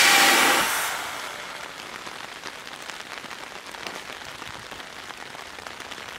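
A sudden burst of compressed air hissing from a Seibu New 101-series electric train's brakes, fading out over about a second, followed by a steady hiss of rain.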